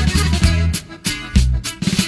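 Norteño band music: a bass line with a steady drum beat, no singing.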